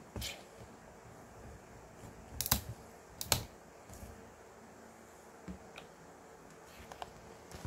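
A handful of light, sharp clicks and taps at irregular moments. The loudest two come a little under a second apart, near the middle.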